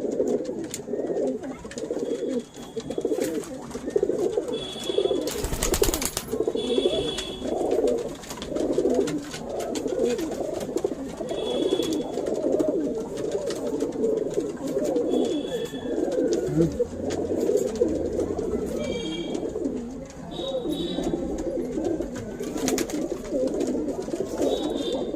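Domestic pigeons cooing steadily, low rolling coos overlapping one after another. There are a few short, faint high chirps now and then, and one brief sharp noise about six seconds in.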